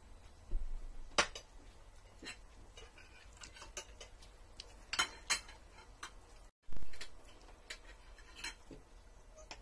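Spoons and forks clicking and scraping against ceramic plates, in scattered irregular clinks as people eat. Two dull low thumps stand out, a small one about half a second in and the loudest about seven seconds in.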